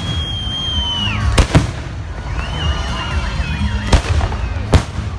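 Fireworks display: sharp bangs of shells bursting, one at the start, two close together about a second and a half in, and two more near the end. High whistling tones from whistling fireworks sound in between, one held and falling away about a second in, another warbling near the middle.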